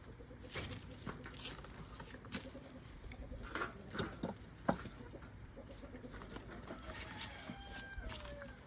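Chickens clucking and calling in a farmyard: scattered short calls, a few louder ones midway, and a drawn-out call falling in pitch near the end.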